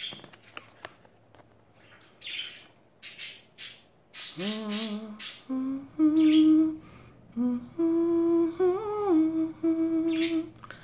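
A woman hums a slow tune in long held notes, starting about four seconds in, some notes sliding up or down. Before that come a few light clicks and soft rustles from tarot cards being handled.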